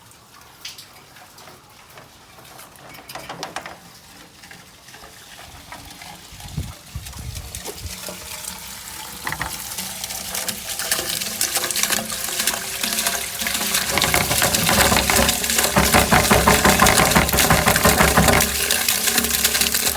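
Water from a hose flush rushing down through a gutter downspout, starting faint and building steadily louder until it runs at full flow in the last third.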